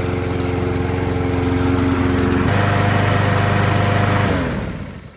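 Honda lawn mower's small four-stroke engine running steadily, its note changing abruptly about two and a half seconds in, then shut off a little after four seconds and winding down to a stop. It runs on a different spark plug fitted in place of the one that kept it from starting.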